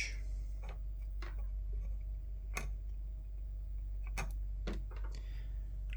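Scattered light clicks and taps, about half a dozen at irregular intervals, from small tools and headset parts being handled during wire soldering. A steady low hum lies underneath.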